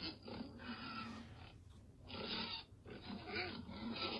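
Recording of a domestic pig grunting, in three bouts with short pauses between them.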